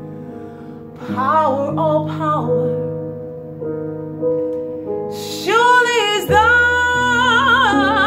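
A woman singing high, sustained soprano phrases with wide vibrato over held piano chords. A short phrase comes about a second in, then a longer, higher held line from about five seconds in.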